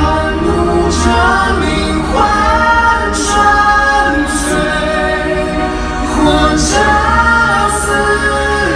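Live concert pop vocals: a lead voice sings long held notes over a band with a heavy bass line, recorded as a stadium performance.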